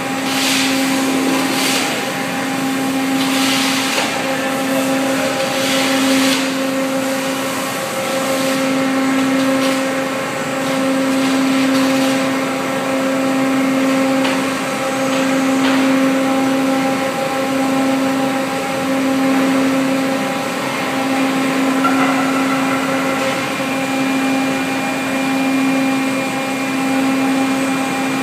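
Steady machine hum from a factory's double rollover line, a strong pitched drone that swells and dips every second or two. Several short hissing bursts, like air being let out, come in the first six seconds or so.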